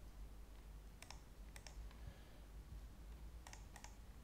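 About five faint clicks from a computer keyboard and mouse, coming singly or in pairs, over a low steady room hum.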